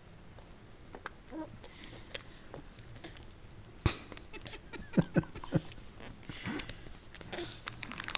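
A baby mouthing and chewing puréed food: faint smacking and clicking mouth sounds, a sharp click about four seconds in, and a few short grunts about five seconds in.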